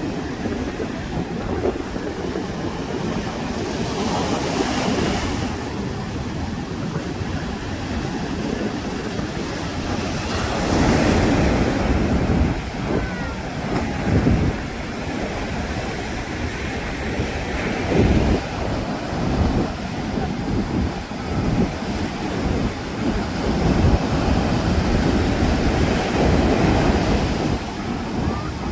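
Sea waves breaking and washing on a beach, the surf swelling and falling several times, with wind buffeting the microphone.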